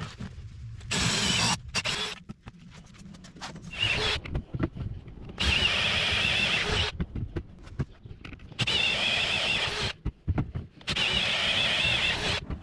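Cordless drill with a spade bit boring holes through a pressure-treated lumber block, in about five runs of one to one and a half seconds each with short pauses between, the motor whine wavering as the bit cuts.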